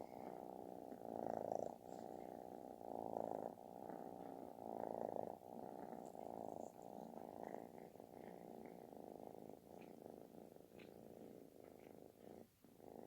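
Calico kitten purring, a loud, snore-like rumble that swells and eases with each breath, with stronger swells in the first half.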